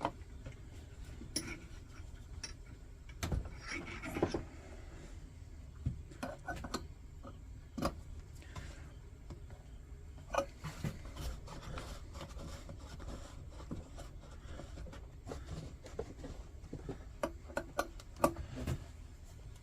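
Scattered clicks, knocks and short rubbing scrapes of metal parts and hand tools being handled while a bench vise is tightened down on a vintage Coleman lantern, with the loudest knocks about three and four seconds in, near eight and ten seconds, and several near the end.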